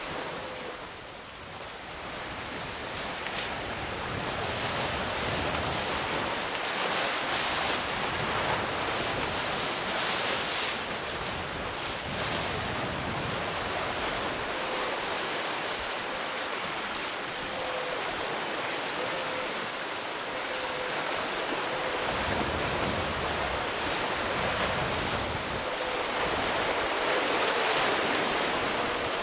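Steady rush of water and wind from a Pogo 2 Mini 6.50 sailboat driving upwind through choppy seas in strong wind of about 15 m/s, its hull pushing through the waves and throwing spray.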